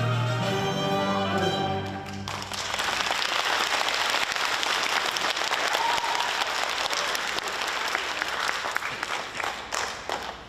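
A song's closing chord rings out and stops about two seconds in, and an audience breaks into applause that lasts for most of the rest.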